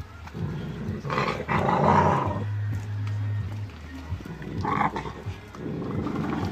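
Pit bull puppy growling in several rough bouts as it chews a piece of raw chicken, over background music with a steady bass line.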